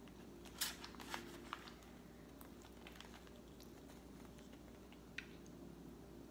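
Faint clicks and plastic crinkles as a metal spoon scoops soft durian from a plastic food tray, the sharpest click a little over half a second in and a few more scattered after, over a steady low hum.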